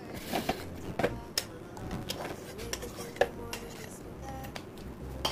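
A metal spoon scraping and knocking against the rim of a bowl while mango chunks are scraped into a blender jar, giving a string of sharp clinks and taps, the loudest about three seconds in.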